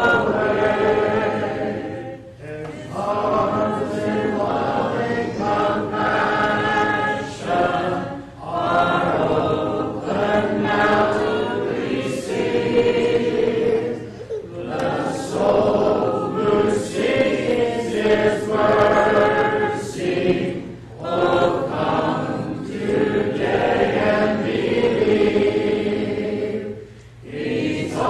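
Church congregation singing a hymn together a cappella, many voices in sung phrases with brief pauses for breath between lines.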